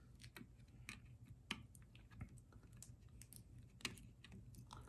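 Faint, irregular small clicks and taps of plastic parts as a memory card is pushed back into a security camera's card slot and the slot cover is pressed shut.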